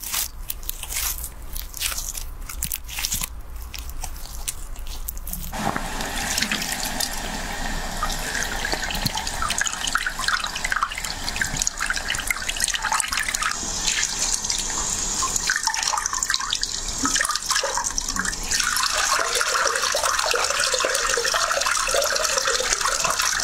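Close crackling and rubbing of hands on skin, then about five seconds in a handheld shower sprayer starts running a steady stream of water over a face and hair into a wash basin, splashing and trickling.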